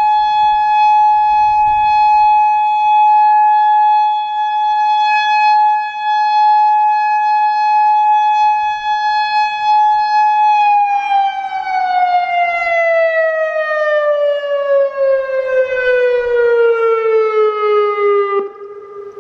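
Federal Signal Modulator 3012 outdoor warning siren sounding a loud steady tone. About eleven seconds in, its pitch glides smoothly down for about eight seconds as it winds down, then the loud sound cuts off near the end, leaving a fainter low tone.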